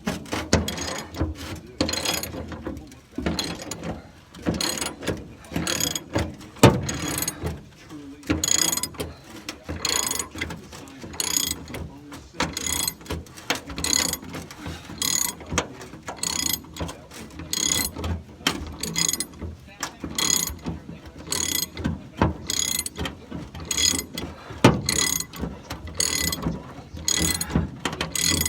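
Ratchet wrench clicking in quick repeated back-and-forth strokes, roughly one and a half to two a second, backing out a T55 Torx truck bed bolt.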